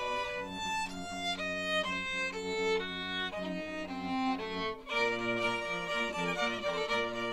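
Violin music: sustained bowed notes changing every half second or so, with a short break about five seconds in before the playing resumes.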